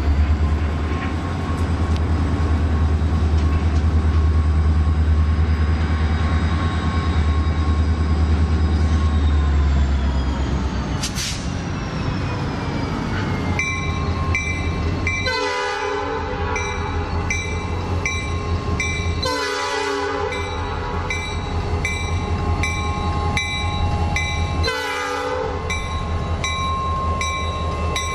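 Norfolk Southern diesel freight locomotive approaching and passing. A low rumble fills the first ten seconds, then the air horn sounds several long blasts with short gaps between them. A bell dings about once a second over the horn.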